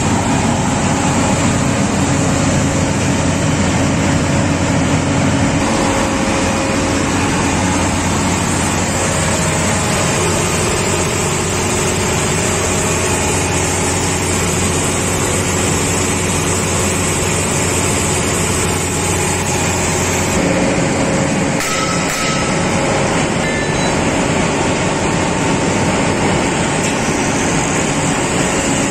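Heavy machinery running steadily, a loud, even drone with hiss. The low hum changes about two-thirds of the way through, and there is a brief knock soon after.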